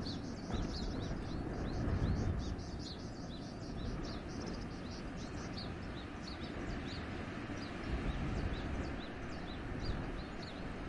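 Wind gusting through a forest as a low, uneven rumble, with small birds twittering in quick, high chirps throughout.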